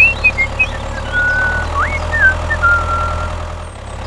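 Tractor engine sound running steadily as a low drone, with short high whistle-like chirps and gliding tones over it.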